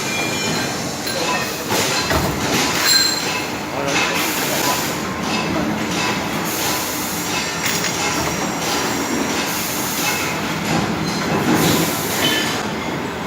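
Automatic CNC carbide-tipped circular saw running and cutting steel bar stock: a continuous metallic grinding noise with thin high squealing tones that come and go.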